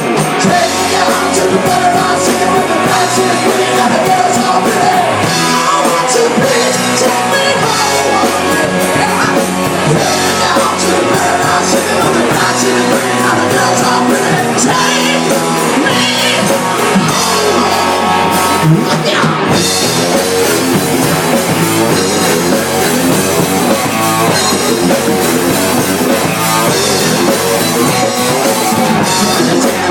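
Rock band playing live and loud: electric guitars over a drum kit, with some voice in the mix.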